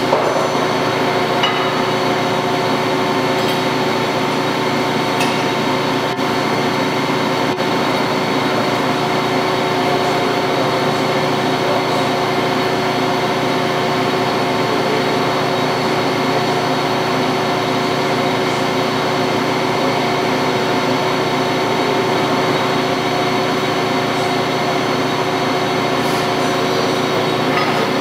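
Fortune V-Turn 36 CNC lathe running through turning cuts, its spindle spinning a chucked part while the turret tooling machines it. A steady machine hum with several fixed tones over a hiss, unchanging throughout.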